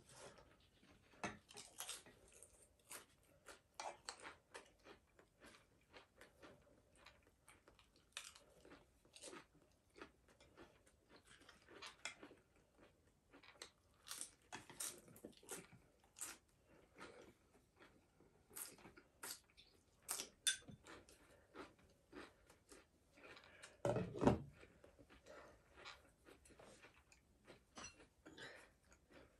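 Quiet eating at a table: chewing, with many small clicks and taps of chopsticks and dishes, and one louder dull thump about 24 seconds in.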